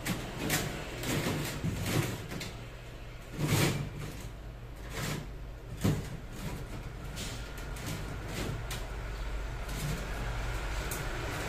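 Irregular knocks and clatter of objects being handled and moved, about nine in the first six seconds. After that a steadier rushing noise with a faint high whine slowly builds.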